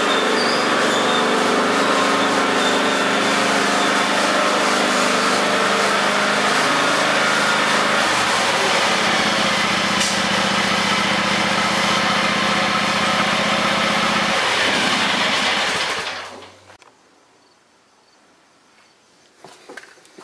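2009 John Deere X320 lawn tractor's 22 hp Kawasaki V-twin engine running as the tractor drives up. Its note changes about eight seconds in and again near fourteen, and it is shut off about sixteen seconds in, leaving a few small clicks.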